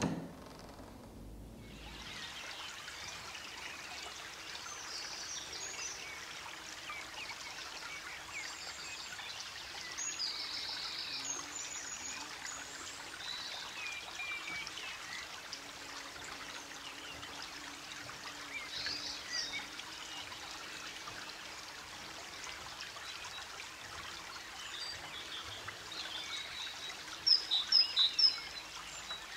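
Outdoor ambience of birds chirping and singing over a steady hiss. There is a brief knock at the very start, and a bird's quick repeated chirps are loudest near the end.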